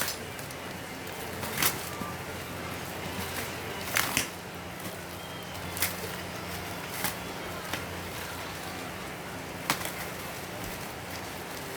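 Airsoft gun packaging being opened by hand: scattered short, sharp crackles and snaps of wrapping, about six in all, over a steady low hum.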